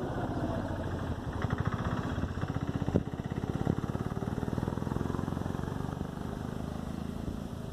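A vehicle engine running with a rapid, even throb, dropping away near the end, with a couple of brief knocks partway through.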